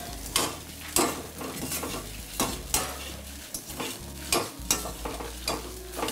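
A perforated steel ladle scraping and clinking against a stainless steel kadai, stirring coriander seeds, dried red chillies, garlic and grated coconut as they roast over a gas flame. The strokes come at roughly two a second over a light hiss.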